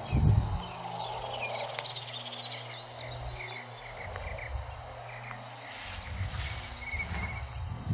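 Insects chirping in a grassy field, with many short repeated chirps and a fast high pulsing trill. A brief low rumble comes just as it begins.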